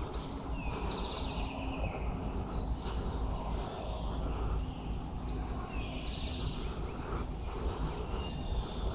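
Songbirds singing, three phrases of whistled notes, each one a short high note followed by a falling trill, over a steady low rumble.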